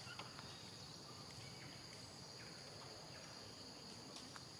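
Faint, steady high-pitched insect drone with a few short faint chirps over it.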